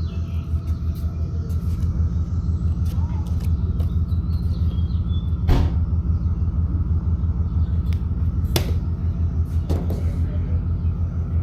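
Steady low rumble with a fast pulsing beat, broken by three sharp knocks in the second half.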